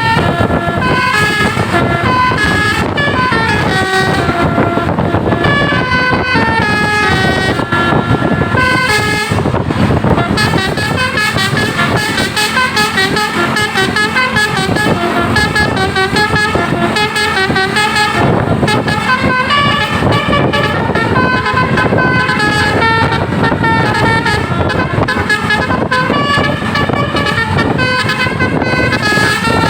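Bus basuri 'telolet' multi-tone air horn playing a continuous melody of short stepped notes, some runs falling in pitch, over a steady low rumble.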